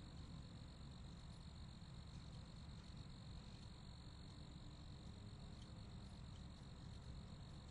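Faint, steady chorus of crickets chirping: a continuous high trill with no pauses, over a low background rumble.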